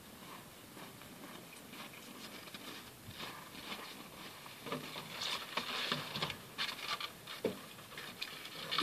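Footsteps crunching on packed snow, an irregular patter that grows louder and denser about halfway through.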